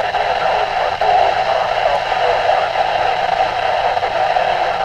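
Midland WR-120EZ weather radio's speaker giving a steady hiss of static with faint, garbled voice underneath. Several NOAA Weather Radio stations are bleeding together on 162.475 MHz, which the owner takes for signals fighting each other and overloading the receiver.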